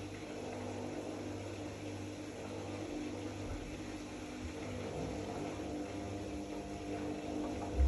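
Zanussi AquaCycle 500 FA 623 front-loading washing machine running with a steady motor hum and a few soft low thumps. The loudest thump comes near the end.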